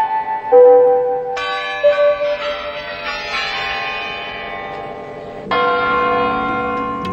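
Large clock-tower bells struck one after another in a slow, uneven sequence, each bell ringing on as the next sounds. The strike about five and a half seconds in is the loudest.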